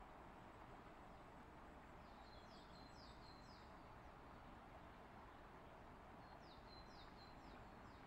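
Faint outdoor ambience: a steady hiss with a small bird calling twice, each time a quick run of about four short, high, falling chirps, a few seconds apart.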